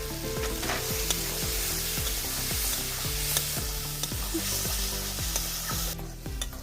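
Onion-and-spice masala with freshly added chopped tomato sizzling in a kadai as it is stirred, with a few sharp clicks of the spatula against the pan; the sizzle drops away about six seconds in. Background music with a steady beat runs underneath.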